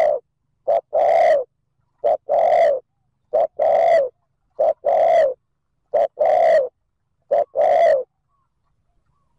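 Spotted dove cooing in the rapid 'thúc gù' style, the urgent coo used by a decoy bird to provoke wild males: a short note followed by a longer one, repeated six times about every 1.3 seconds, then stopping near the end.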